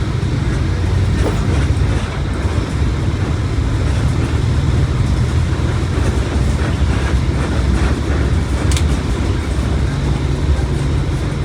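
Mercedes-Benz OF1721 BlueTec 5 bus under way: a steady low diesel rumble mixed with road noise and rattling. A brief high squeak comes about nine seconds in.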